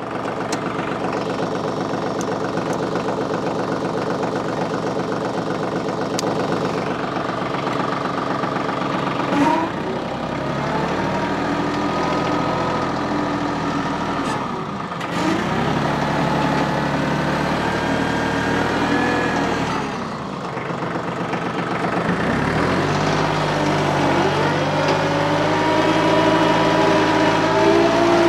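TYM diesel tractor engine running steadily while grading, its pitch dropping and climbing back several times as the throttle and load change.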